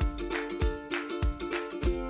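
Background music: plucked strings, ukulele-like, over a steady beat of about one and a half beats a second.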